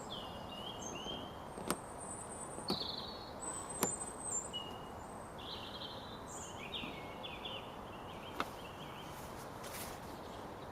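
Small birds chirping in short, scattered calls over a steady low background hiss, with three brief sharp clicks spread through it.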